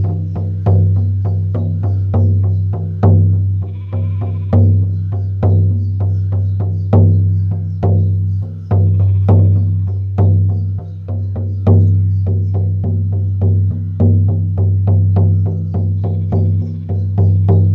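An 18-inch deerskin shamanic frame drum on a willow hoop, struck with a firm beater in a steady beat of about two strikes a second. Each strike rings on in a deep, sustained tone.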